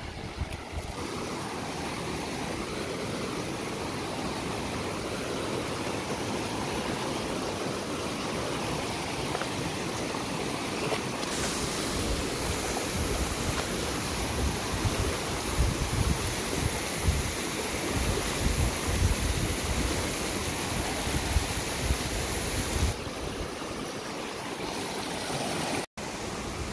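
Shallow river rushing over rocks and small waterfalls splashing down mossy rock, a steady hiss of water. Wind buffets the microphone in low rumbling gusts. The hiss turns brighter about a third of the way in and softer again near the end, with a brief cut-out just before the end.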